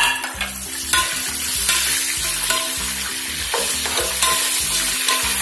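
Cashew nuts frying in hot coconut oil: a steady sizzle, with the scrape and clink of a slotted spoon stirring them around the pot.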